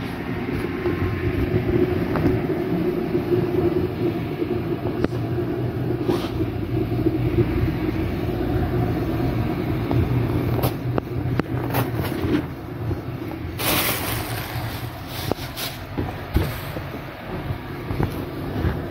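Steady low mechanical hum and rumble, with a few brief knocks and a short rustling burst about two thirds of the way in.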